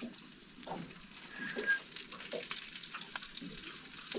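Salt-and-pepper squid frying, a steady sizzle scattered with small crackles and pops.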